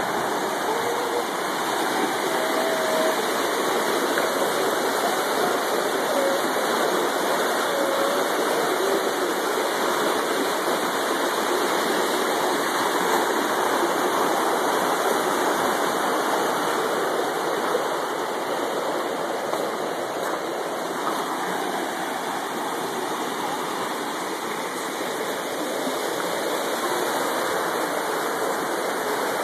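A creek swollen by heavy rains, running high and fast: steady rushing of floodwater.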